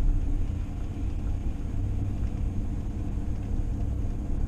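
Steady low rumble of a vehicle driving along the road, with engine and road noise.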